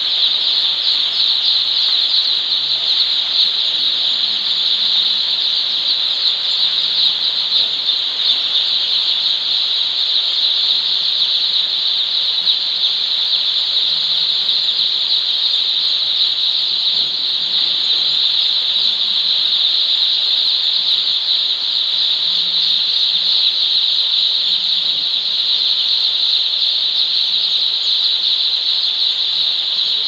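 Thousands of day-old chicks peeping all at once, a dense, steady, high-pitched chorus of cheeps.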